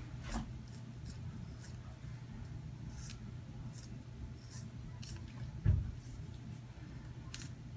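Scissors snipping through a gel shoe insole in a few sparse, faint cuts, trimming it to size. A single dull thump comes a little past halfway, over a steady low room hum.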